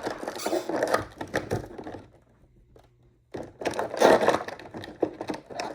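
Cardboard advent-calendar door being pushed and torn open by hand, with crackling and crinkling of the packaging, in two spells separated by a short pause about two seconds in.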